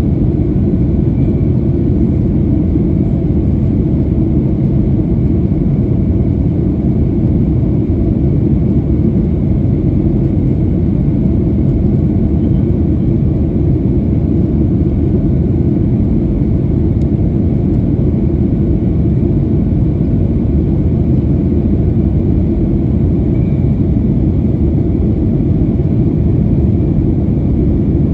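Cabin noise inside a Boeing 737-900ER heard from a rear window seat: the steady, deep rumble of its CFM56-7B jet engines and the airflow past the fuselage, holding level with no change in engine power.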